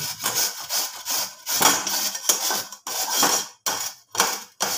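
Raw potato being grated on the coarse side of a stainless steel grater: rough rasping strokes repeated about twice a second.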